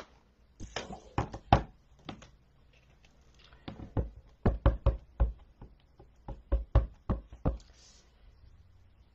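Clear acrylic stamp block being tapped onto a Crumb Cake ink pad to ink the stamp. A few knocks about a second in, then a quicker run of about a dozen sharp taps from about four seconds in.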